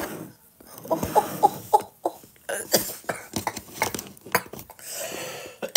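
A woman coughing in short wheezy bursts, which she puts down to smoking, with scattered clicks and knocks around it.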